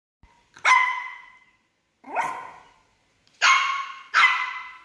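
Shih tzu puppy barking: four short, high-pitched yaps, the last two close together, each trailing off in the room's echo.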